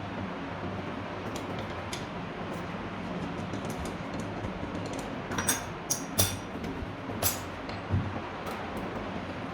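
A steady low hum with a few sharp clicks and clinks, clustered from about halfway through.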